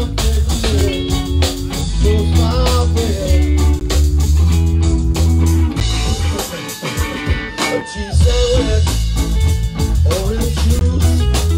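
Live band playing loudly: electric guitars over bass and a drum kit. About halfway through, the bass drops out for a couple of seconds while a guitar line bends in pitch, then the full band comes back in.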